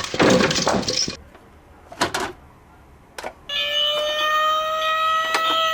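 An emergency-vehicle siren starts up about three and a half seconds in, one slow wail that rises a little and then falls. Before it, a burst of clattering noise stops about a second in, followed by two short knocks.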